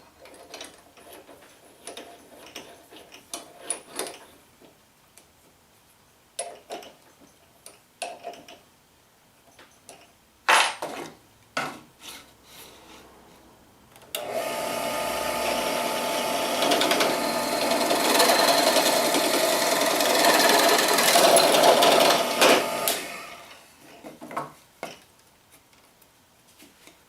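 Scattered clicks and knocks of handling, then a power drill runs steadily for about eight seconds, boring a freshly resharpened drill bit into wood, and stops.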